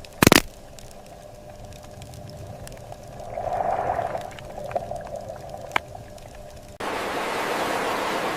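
A sharp knock, then a low rumble with a faint hum. About seven seconds in it cuts suddenly to the steady rush of flowing water.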